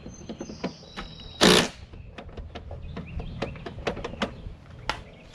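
Light clicks and knocks of a mower wheel being handled and wobbled on its axle, with one loud, short rushing noise about a second and a half in.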